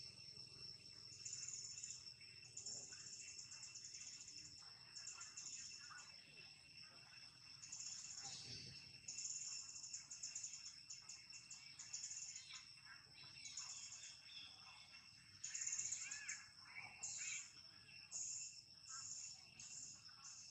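Faint outdoor chorus of insects: high pulsing trills that come and go over a steady high whine, with scattered bird chirps and a louder cluster of calls about three-quarters of the way through.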